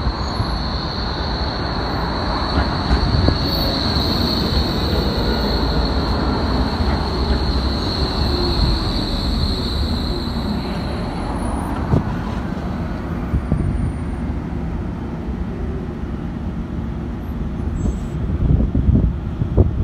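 Yellow BVG low-floor tram rolling into the stop past the microphone, its wheels rumbling on the rails, with a steady high-pitched squeal that fades out about ten seconds in. Gusts of wind buffet the microphone near the end.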